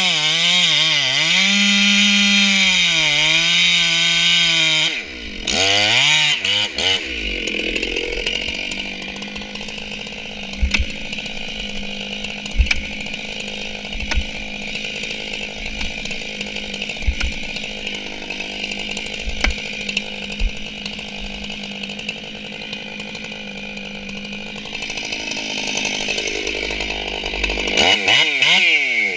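Stihl MS 461 chainsaw, ported with a reshaped combustion chamber and muffler mod, cutting into a tree trunk under load, its revs wavering. About five seconds in it drops off, revs briefly, then settles to a lower steady running speed for most of the time with a few sharp knocks. It revs up again near the end.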